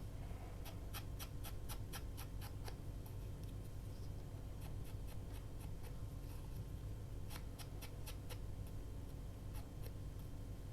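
Small paper pieces being trimmed and handled: short, light, irregular clicks and scratches in two clusters, about a second in and again past the middle, over a faint steady low hum.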